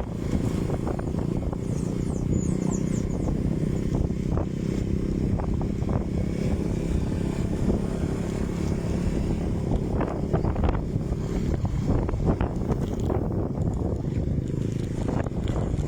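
A boat's motor running steadily, with wind buffeting the microphone and a few short knocks.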